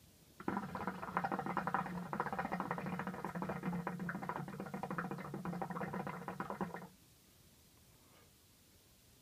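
Hookah water bubbling in a rapid, continuous gurgle for about six seconds. It starts about half a second in and stops abruptly near the end.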